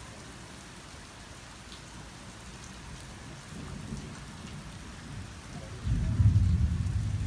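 Steady rain falling, with a loud, low rumble of thunder breaking in near the end.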